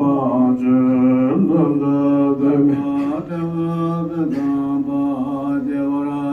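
Slow chant-like singing: long held vocal notes that step to a new pitch about once a second.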